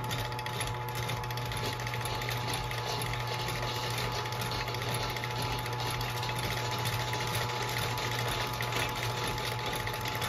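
Uncased Chamberlain Electrolift G5446 garage door opener running: its electric motor drives the large pulley through a V-belt, giving a steady low hum with an even mechanical whir.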